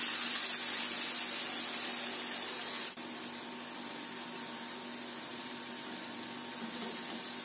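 Wheat-flour batter fritters sizzling in hot oil in a steel pan: a steady frying hiss, with a brief click about three seconds in, after which it is a little quieter.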